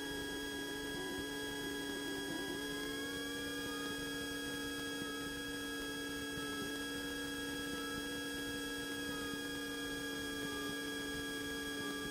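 Cessna 150's engine at taxi power heard through the aircraft's intercom audio, as a steady hum with several fixed whining tones. A higher tone glides up about two and a half seconds in and settles back down near the end.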